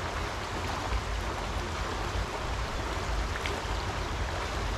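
Steady rushing of a flowing river, with a constant low rumble beneath it.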